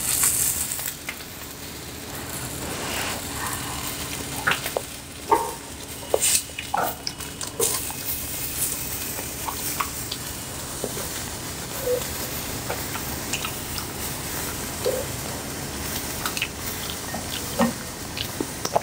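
Thin beef slices sizzling on a grill plate in a steady hiss, with scattered small clicks and taps from chopsticks and eating.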